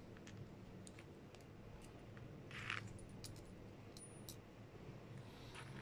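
Faint metallic clinks of small steel disc-spring (Belleville) washers being picked from a pile and slid onto the brass piston stem of a PCP air-rifle regulator as the spring stack is rebuilt. A few scattered clicks, with a short scrape about two and a half seconds in.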